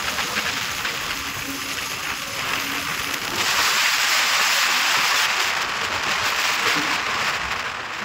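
Wind rushing over the microphone of a motorcycle riding at speed, a steady hiss with road noise that grows louder about three and a half seconds in and eases off near the end.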